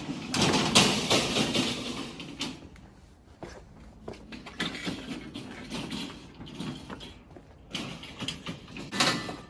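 Metal clanking and scraping with rolling noise from a shop cart and engine hoist being worked while an engine block is shifted between carts. It is loudest in the first two seconds, then continues as scattered clatter.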